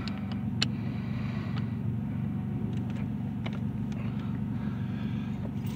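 Scattered small metallic clicks and taps from hand work on the ignition lock in the steering column, over a steady low hum.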